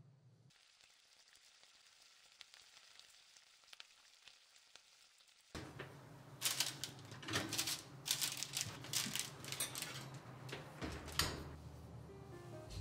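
A faint, even hiss, then from about halfway a series of sharp metallic clanks and scrapes as a metal baking sheet of hot cinnamon buns is slid off the oven rack with an oven mitt.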